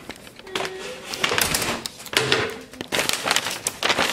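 Paper takeout bag and its stapled receipt rustling and crinkling as they are handled, in a string of irregular short crackles.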